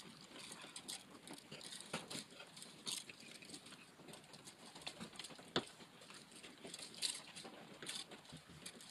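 Hands feeding 14-2 electrical cable through a wall opening into a switch box: faint irregular rustling, scraping and small clicks of the cable and wires against the drywall and box, with one sharper click about five and a half seconds in.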